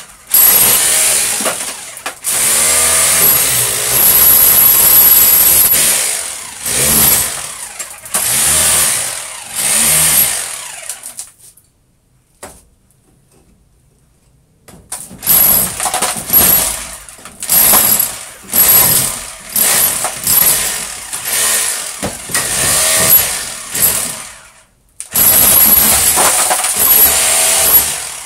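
Handheld electric power tool run in bursts of a few seconds, with a high whine as the motor speeds up and slows down between bursts. It stops for about three seconds near the middle, then goes on in many short bursts and one long run near the end.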